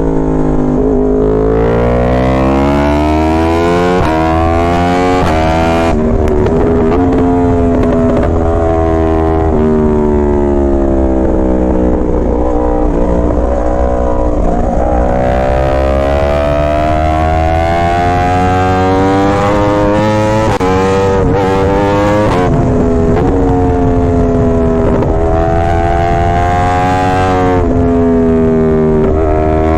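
Yamaha R1's inline-four engine and exhaust under hard riding: the pitch climbs steeply, drops, and climbs again several times as the bike accelerates and eases off.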